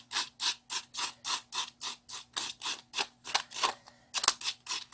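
Small knife blade scraping and shaving dry floral foam in quick, even strokes, about three a second, with a brief pause near the end before the strokes resume.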